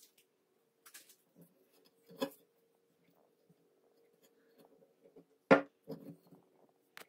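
Handling noises as a bare steel cleaver blade is moved about on a sheet of paper on a table: a few light knocks and paper rustles, the loudest knock about five and a half seconds in, over a faint steady hum.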